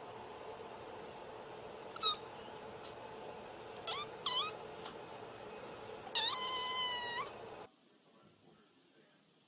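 A white Scottish Fold kitten meowing in high, short cries: one about two seconds in and two around four seconds, then one long drawn-out meow, over a steady hum. The sound drops away suddenly near the end.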